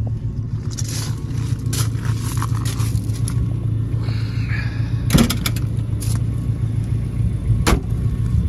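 A steady low rumble, with a scraping creak about four seconds in as the aluminium bucket seat back is tilted, then two sharp knocks, about five and eight seconds in, from the seat and door being handled.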